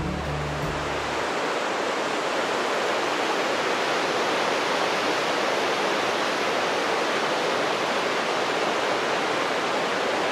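Mountain waterfall and its rocky stream, a steady, even rush of water.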